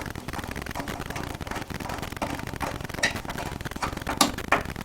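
Small clicks and scrapes of a Phillips screwdriver and metal faucet parts being handled, with a few sharper knocks about three and four seconds in.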